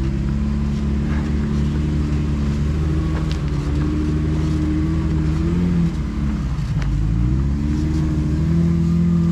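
Jeep engine running steadily; its pitch drops about six seconds in, then climbs back up.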